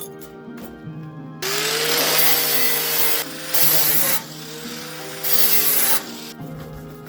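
A small electric motor runs in three bursts, each a rushing whir that spins up and winds back down, the first one the longest. Background music with a steady low note plays underneath.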